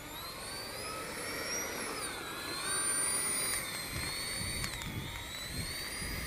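Whine of a JP Hobby 70 mm all-aluminium electric ducted fan on 6S powering an RC jet. The pitch climbs over the first couple of seconds, drops, then drops again a little later and holds steady.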